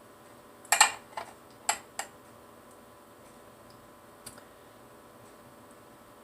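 A quick run of four or five sharp clicks and knocks about a second in, with one faint click later, as of tableware being handled while plating food.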